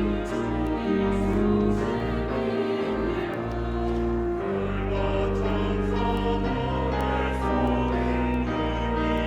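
Church choir singing a hymn anthem with instrumental accompaniment: held chords that change about once a second over a deep, sustained bass line.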